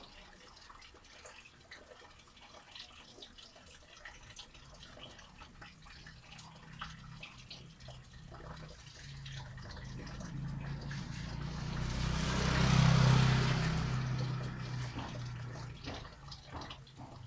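Rainwater dripping in small, irregular taps. About two-thirds of the way through, a low hum with a rushing hiss swells up to a loud peak and then fades away.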